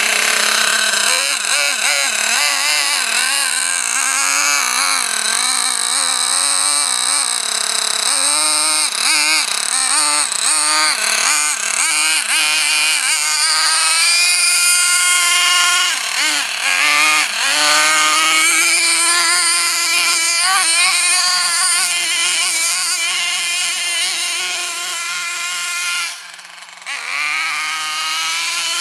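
Small nitro engine of a 1:8 MTA-4 Sledge Hammer S50 RC monster truck, high-pitched and revving up and down repeatedly as the truck is driven, with a brief drop in level near the end.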